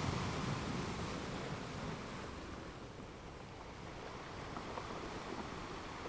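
Steady rushing noise with no clear tone, easing slightly about three seconds in.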